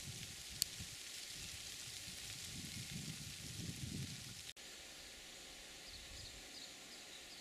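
Quiet outdoor ambience: a steady high hiss with a faint, uneven low rumble in the first half and a single short click about half a second in.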